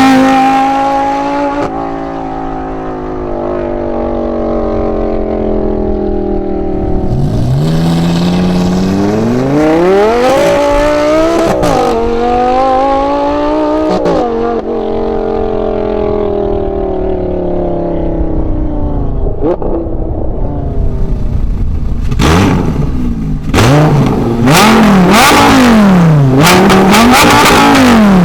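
Lamborghini Gallardo LP570-4 Super Trofeo Stradale's V10 engine through a straight-piped, valveless Kreissieg exhaust, loud. Its pitch falls slowly off throttle, then it accelerates hard with a gear change partway up, eases off again with the pitch sliding down, and near the end it is blipped repeatedly, the revs rising and falling about once a second.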